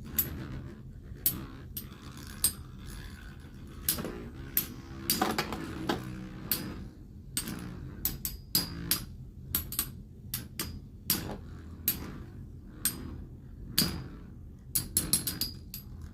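Two Metal Fight Beyblade spinning tops whirring in a stadium and clashing with sharp metallic clicks, again and again at irregular intervals, coming in quick clusters in the second half.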